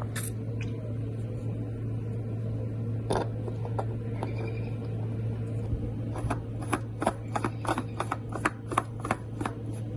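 Light metallic clicks from hand tools working the new oil filter onto the motorcycle engine. A few scattered clicks early, then a run of two or three clicks a second from about six seconds in, over a steady low hum.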